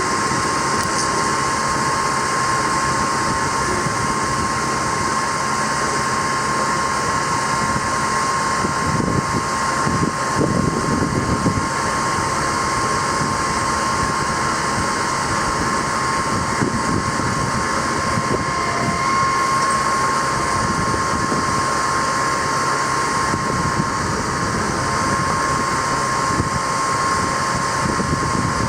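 6.6L Duramax diesel engine of a bucket truck running steadily, with a constant high whine throughout.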